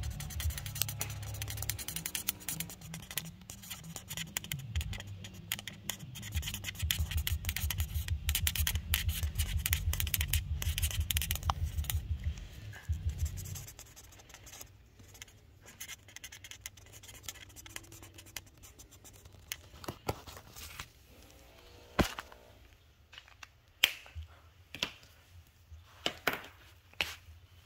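A pen scratching on paper in quick, dense strokes while a drawing is coloured in. About halfway through it stops and the sound drops, with a few sharp knocks near the end.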